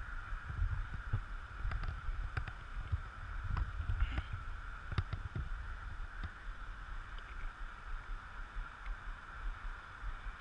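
Uneven, gusting low rumble of wind buffeting the body-worn camera's microphone, with a faint steady high hum underneath and a few light clicks scattered through.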